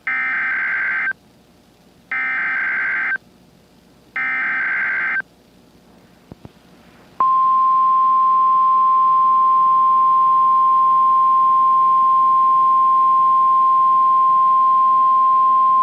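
Three one-second bursts of buzzy, warbling EAS SAME digital header data from a NOAA Weather Radio broadcast, about a second apart, encoding the Required Weekly Test. About seven seconds in, after a short pause, the steady 1050 Hz Weather Radio warning alarm tone starts and holds.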